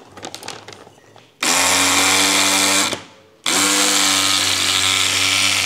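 Handheld electric fabric cutter running as it cuts woven carbon-fibre fabric: a steady motor buzz of unchanging pitch. It runs for about a second and a half, stops briefly, then starts again for a longer cut.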